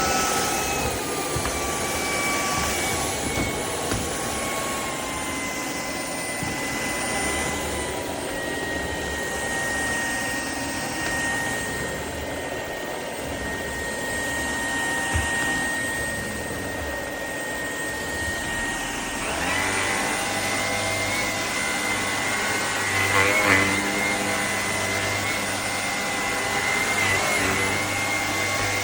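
Shark PowerDetect cordless stick vacuum running: a steady motor whine that settles in pitch over the first few seconds after start-up, with a deeper hum from about two-thirds of the way through.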